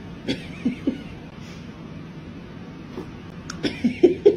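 Soft taps and knocks as a cat swats at a plastic spray bottle, three in the first second, then a sharp click and a few louder short knocks near the end.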